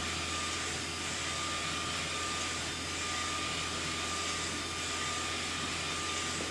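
SK UV6145 UV flatbed inkjet printer running as it prints: a steady airy machine noise with a faint constant whine and a low hum underneath.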